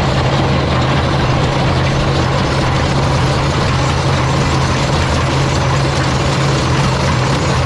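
Vermeer T600C track trencher digging: its diesel engine runs steadily under load while the digging chain clatters through the soil.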